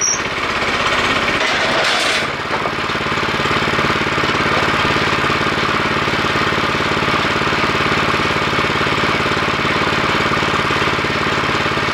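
Small horizontal-shaft gasoline engine on a home-built kinetic log splitter, running steadily with a rapid, even firing beat. A louder, noisier stretch sits over it in the first two seconds or so.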